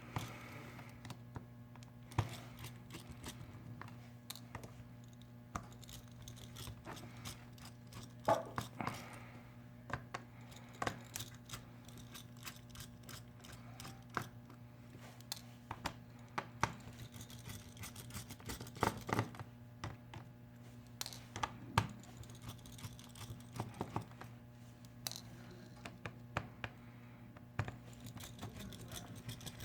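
Small irregular clicks and taps of a 00 Phillips screwdriver working at the screws of a rugged phone's plastic housing, with the parts being handled, over a steady low hum.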